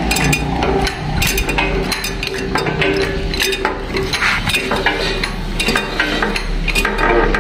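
Irregular metallic clinks and knocks from steel being handled at a press brake, over a steady low hum.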